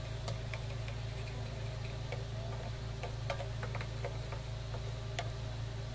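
A wooden spatula stirring a thick, cornstarch-thickened sauce in a stainless-steel saucepan: irregular light clicks and taps, over a steady low hum.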